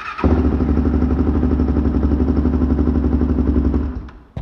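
Honda 400EX ATV's single-cylinder four-stroke engine starting on the button: it catches almost at once and runs steadily, then cuts off about four seconds in. It starts now that the stock cam's decompression spring and roll pin are back in place.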